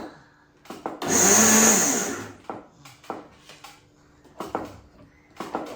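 Electric countertop blender pulsed on for about a second, blending tomatoes, then stopped. In the quieter rest there are light clicks and knocks.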